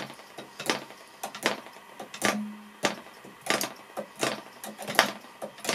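PAW .55 model aero diesel engine, flooded, being flicked over by hand with the compression screwed up: a sharp pop with each flick, about one to two a second, a couple of them catching for a split second as it tries to clear the excess fuel.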